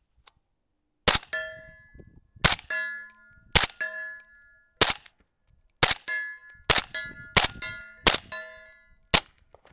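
Nine shots from a suppressed AR-15 rifle chambered in 7.62×39mm, fired at an uneven pace of about one a second. Each shot is followed by the ring of a steel target being hit, a ding that dies away over a fraction of a second.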